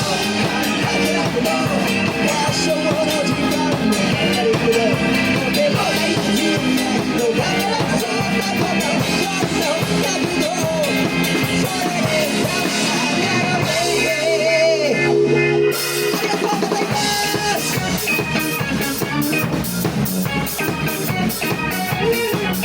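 Live rock band playing an instrumental passage, the drum kit keeping a steady beat under guitar and bass. About two-thirds of the way through, the drums stop for a couple of seconds, leaving held chords, then the full band comes back in.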